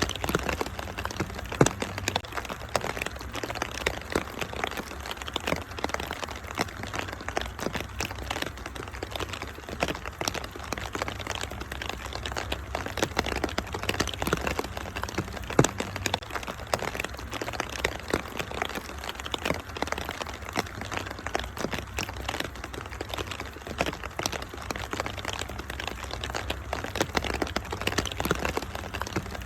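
Wood fire crackling with dense, irregular pops, two of them clearly louder, one about a second and a half in and one about halfway through, over a steady hiss of rain and a low rumble.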